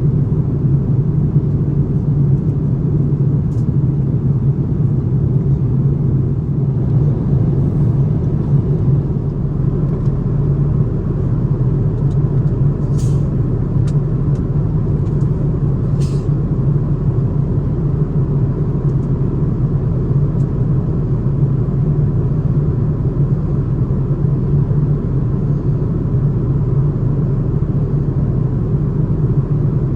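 Steady cabin noise aboard an Airbus A330neo airliner: an even, low rumble of engines and airflow. Two faint clicks come near the middle.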